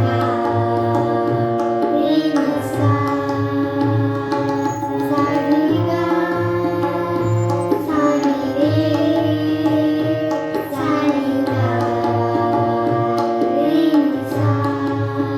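Devotional bhajan music: held melodic notes that change every couple of seconds over a steady, pulsing drum beat.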